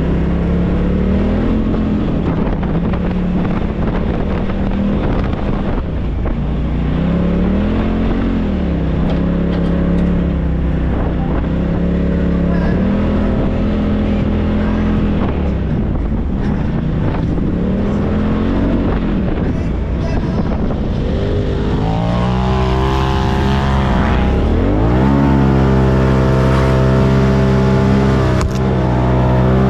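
Side-by-side UTV engine running under changing throttle while driving on sand, its pitch rising and falling repeatedly. It works harder and higher in the last several seconds as the vehicle speeds up onto a dune.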